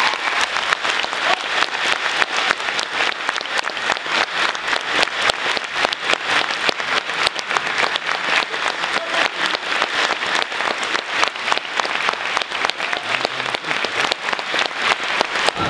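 Theatre audience applauding steadily, dense clapping from many hands.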